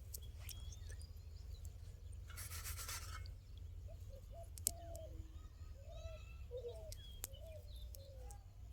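Faint outdoor ambience with a steady low rumble and a short burst of noise about two and a half seconds in. Then comes a run of about a dozen short, bending bird-like calls through the second half, with a couple of sharp clicks among them.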